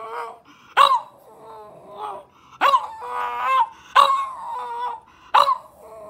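French bulldog vocalizing in a series of drawn-out pitched calls, four in a row about a second and a half apart, each starting sharply, dropping in pitch and then holding.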